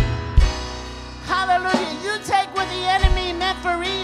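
Live church worship music: a woman sings over sustained Yamaha Motif8 synthesizer keyboard chords, with a few drum-kit hits.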